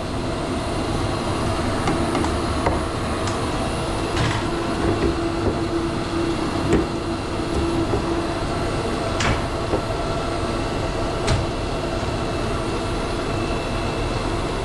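Steady mechanical running noise, a continuous rush with a held hum, with a few light clicks.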